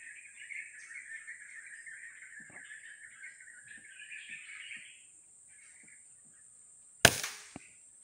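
Birds chirping over a steady high-pitched whine, fading out about five seconds in; then a single sharp rifle shot about seven seconds in, followed half a second later by a smaller click.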